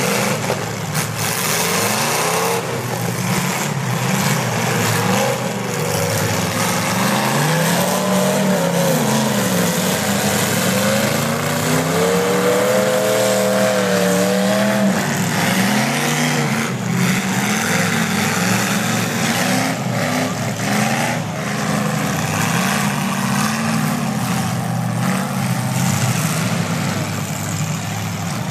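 Demolition derby car engines revving hard, their pitch rising and falling again and again over a loud, continuous din.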